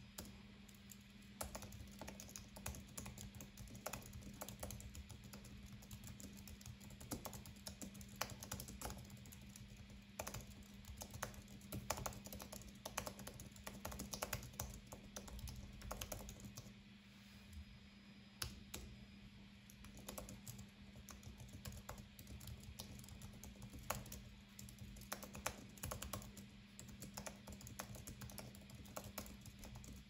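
Typing on an Apple Magic Keyboard 2's low-profile scissor-switch keys: a quiet, continuous run of quick, irregular key clicks.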